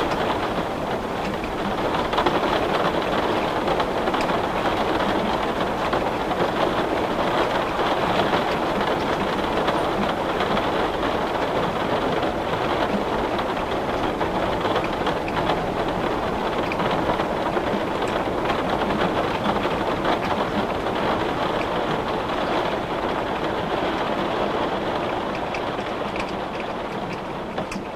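Heavy rain beating steadily on a glass pane, a dense, even patter with no letup.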